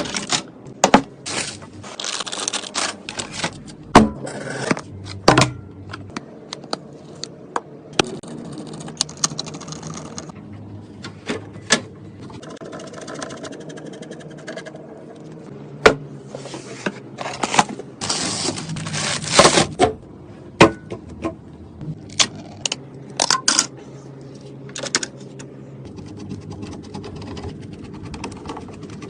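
Irregular clicks, taps and short scrapes of computer hardware being handled and fitted during a PC assembly, with a few louder knocks and rustling bursts around 2–3 s and 18–20 s in.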